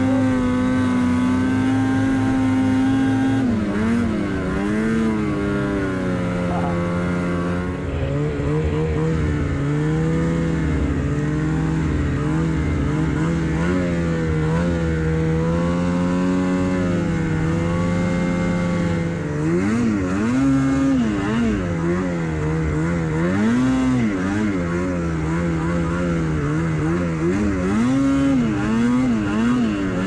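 Snowmobile engine running under throttle. Its pitch holds steady for the first few seconds, then rises and falls over and over as the throttle is worked.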